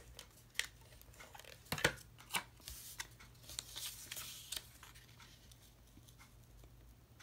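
Small pieces of cardstock and patterned paper being handled and pressed on a craft mat: quiet papery rustling and rubbing, with a few light taps in the first few seconds.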